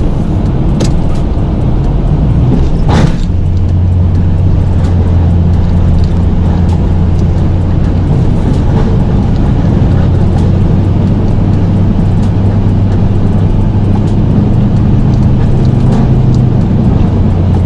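Pickup truck engine running steadily while plowing snow, with a sharp clunk about three seconds in, after which the engine settles into a steady deep hum.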